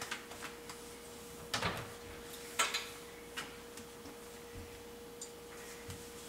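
Scattered light clicks and taps of a spoon against a blender jar while the smoothie is being tasted, with a couple of louder knocks about one and a half and two and a half seconds in. A faint steady hum runs underneath.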